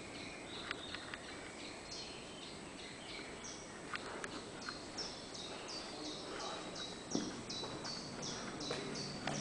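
A small bird calling over and over, a quick run of short high notes at about three a second through the second half, over faint outdoor background noise, with a few scattered clicks.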